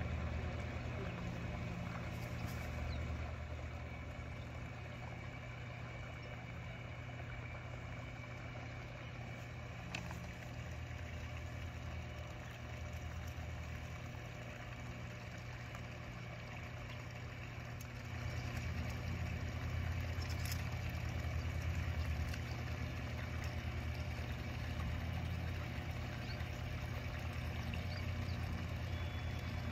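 A steady low mechanical hum, like a motor or machinery running, getting a little louder about eighteen seconds in, with a few faint ticks.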